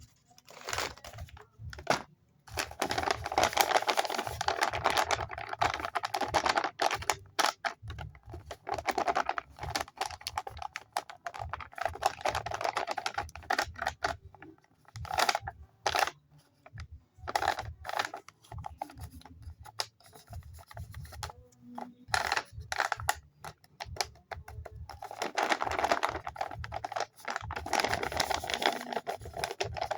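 Paper and tape of a homemade paper blind bag crinkling and rustling as hands handle and open it, with many small clicks and taps, in louder stretches with quieter pauses between.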